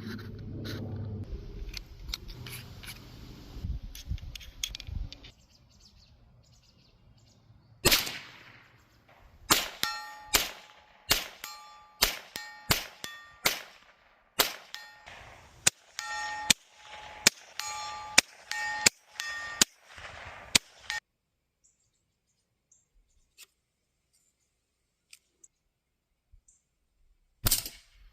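Huben GK1 Mini .30-calibre air pistol firing: one shot, then a rapid string of shots about one or two a second, many followed by a brief metallic ring. One more shot comes near the end.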